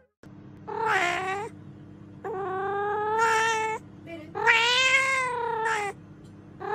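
Domestic cat meowing: three long, drawn-out meows of over a second each, a fourth starting at the very end, over a steady low hum.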